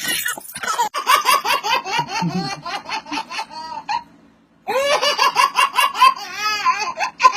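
A baby laughing in rapid runs of giggles, pausing briefly about four seconds in and then laughing again.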